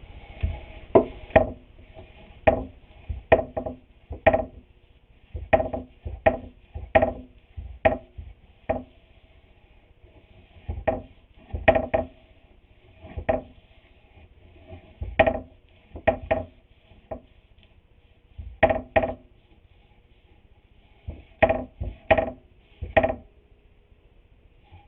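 Repeated knocks on wooden boards, coming in quick clusters of two to four with gaps between, each knock ringing with the same hollow wooden tone.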